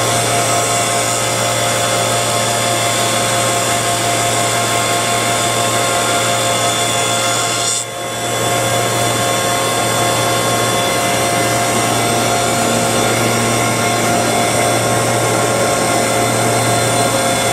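Double-sided lamella edge-milling machine running steadily, its cutter-head motors whining as wooden bed-slat lamellas feed through and have both edges milled. The level dips briefly about eight seconds in.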